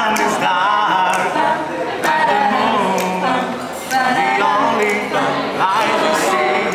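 A group of young people singing together, several voices at once without clear instrumental backing.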